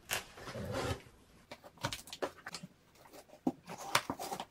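Utility knife slicing along the packing tape of a cardboard box for about a second, then the cardboard flaps rustling and knocking as they are pulled open, with a sharp tick about four seconds in.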